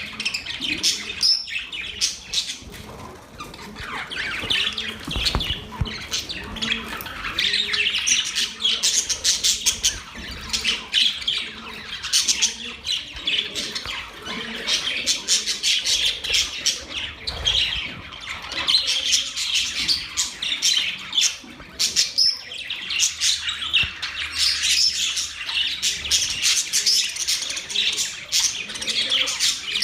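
Budgerigars (parakeets) warbling and chattering, a continuous run of quick chirps, clicks and squawky notes.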